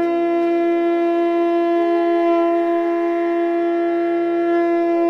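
A single long, steady note blown on a wind instrument, held at one pitch with a full, bright set of overtones.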